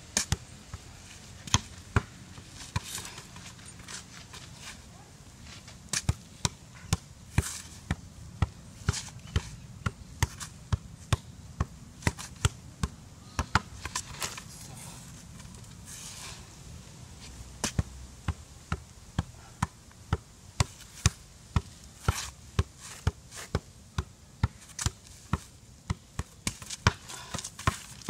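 A ball kept up with one foot from a sitting position: sharp taps of the shoe against the ball, about two a second, in two long runs with a short break between them, with some rustling now and then.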